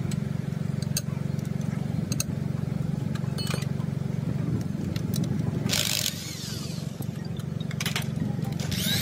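A machine or power tool running with a steady low hum, with scattered light clicks and two short loud bursts of noise, one about six seconds in and one near the end.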